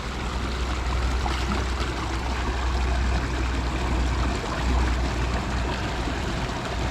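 Creek water rushing steadily over rocks, an even hiss with a low rumble beneath it.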